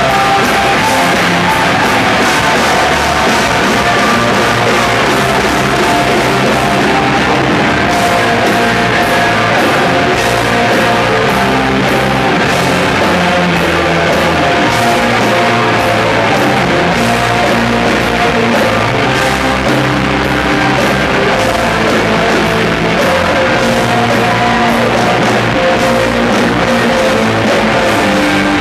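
A rock band playing live at full volume: distorted electric guitars and drums in steady, dense chords, with some singing over them.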